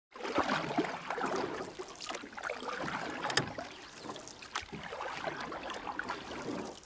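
Sea water sloshing and splashing close to the microphone at the surface, with scattered small clicks and knocks.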